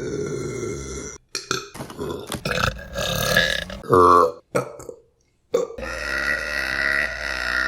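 Women burping in a run of short clips cut one after another. A loud, short, pitched burp comes about four seconds in, and a long drawn-out burp fills the last two seconds.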